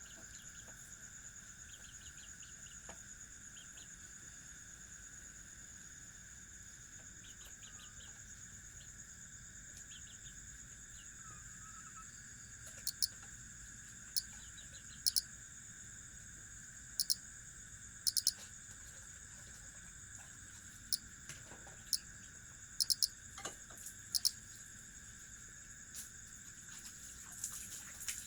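Crickets trilling steadily and without pause, with about a dozen short, sharp chirps breaking in over the second half.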